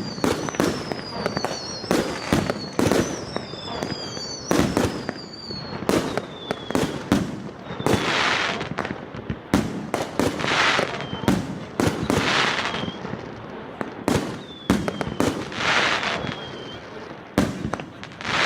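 A 100-shot fireworks cake with 2-inch shells firing: an irregular, rapid series of shots and bursts, with whistling tones that drift down in pitch and several longer hissing swells.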